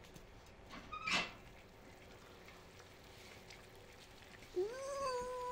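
A woman's drawn-out "mmm" of delight on tasting food: it rises, holds on one note for about a second, then falls away near the end. Before it, about a second in, there is a brief clink of tableware.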